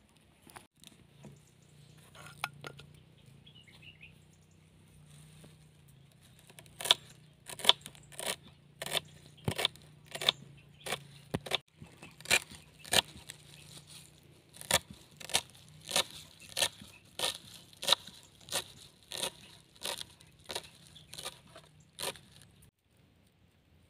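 Knife chopping fresh parsley on a board: a steady run of sharp knocks, about one and a half a second, starting several seconds in and stopping near the end, after a few seconds of faint rustling of leaves.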